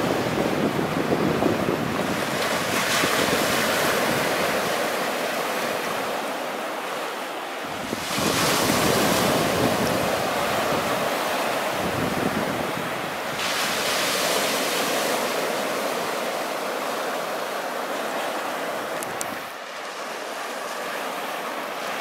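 Small sea waves breaking and washing up over a flat sandy beach, the surf swelling afresh about three, eight and thirteen seconds in. Wind buffets the microphone with a low rumble until shortly before the end.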